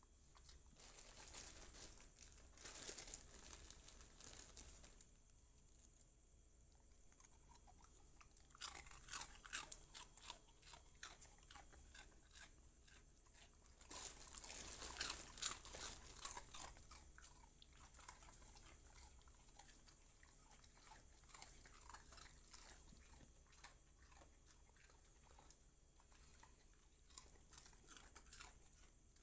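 A dog crunching and chewing food, in spells of crisp crunches with short pauses between. The loudest spell comes about halfway through, and lighter chewing continues after it.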